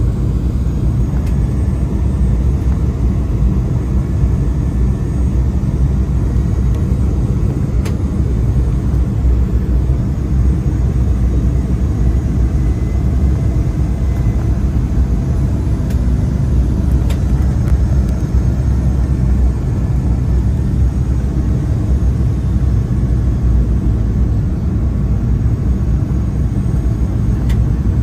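Steady low rumble of an airplane's engines and rushing air, heard from inside the passenger cabin as the plane descends on approach.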